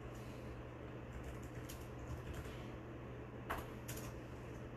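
Faint steady low hum with a few light, scattered clicks, the two sharpest about three and a half seconds in.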